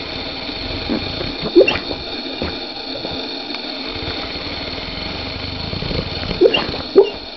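Sleeping bullmastiff snoring, with short sharp sounds about one and a half seconds in and twice close together near the end.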